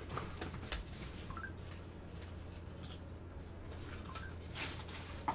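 Faint handling noise of trading cards and pack wrappers: light rustles and a few sharp clicks, with small squeaks, over a steady low electrical hum.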